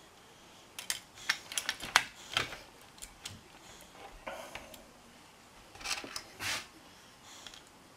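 Metal parts of a Hatsan Gladius air rifle clicking and knocking as they are fitted back together by hand. A quick run of sharp clicks comes in the first couple of seconds, then a short scrape, then a few more clicks and scrapes near the end as tools are handled on the bench.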